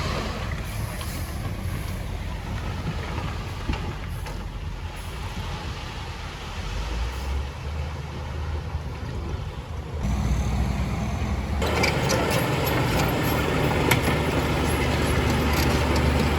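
Heavy diesel construction machinery running steadily. It grows louder about ten seconds in, and a broader rushing noise joins it shortly after.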